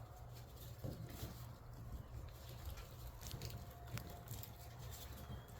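Shiba Inu puppies moving about quietly, their claws and paws making faint, scattered light taps and clicks over a low hum.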